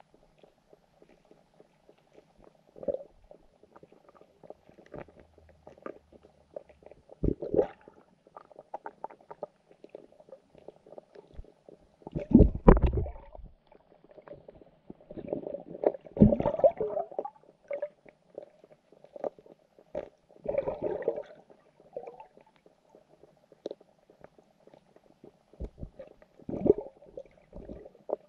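Muffled underwater sound picked up by a submerged camera in a carp and goldfish pond: a steady low hiss broken by irregular dull knocks and gurgles, the loudest about halfway through.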